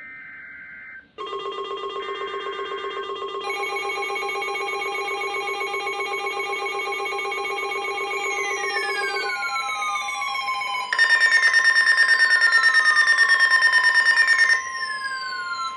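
Emergency Alert System weather-radio alert for a severe thunderstorm warning. Two short data bursts come first, then several steady electronic alarm tones sound together, layering up over the next few seconds. Repeating falling sweeps join about eight seconds in, and the tones get louder from about eleven seconds before easing near the end.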